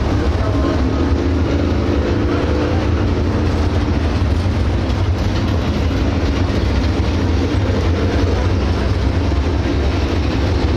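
Several dirt late model race cars' 602 crate V8 engines running together, a loud, steady, low rumble with no sharp impacts.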